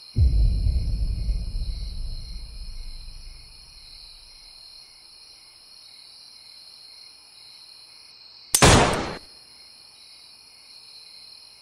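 Crickets chirring steadily. A sudden deep boom comes at the start and dies away over about three seconds, and a loud burst of hiss lasting about half a second comes near the end.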